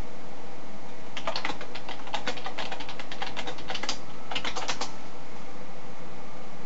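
Typing on a computer keyboard: a quick run of key clicks for about three seconds, a short pause, then a few more rapid clicks, over a steady low hum.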